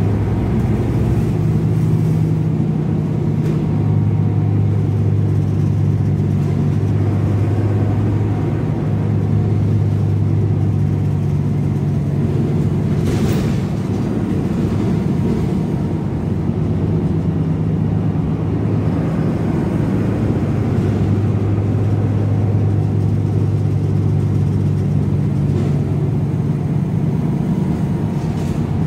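A Transjakarta city bus driving, heard from inside the passenger cabin: a steady low engine drone over road rumble, with the engine note changing a few times. There is a single brief knock near the middle.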